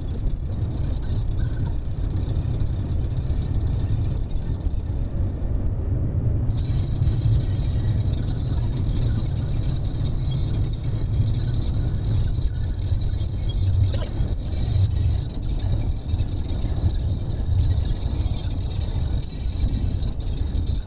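Road and engine noise inside a car at motorway speed: a steady low rumble with a hiss above it, the hiss dropping out for about a second near the middle.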